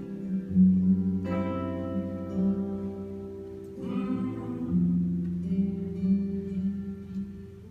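Live acoustic guitar music: an instrumental passage of picked notes over sustained low tones.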